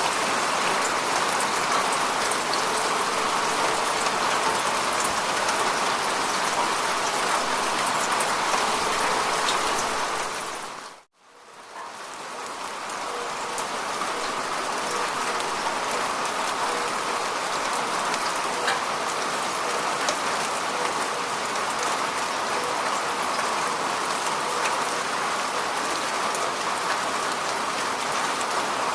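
Steady rain falling, an even hiss of many drops. About eleven seconds in the sound dips away to silence for a moment, then fades back up over a couple of seconds.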